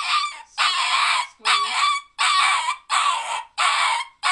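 Cavalier King Charles spaniel puppy crying out over and over, about six loud, high cries of roughly half a second each, while getting a vaccine injection.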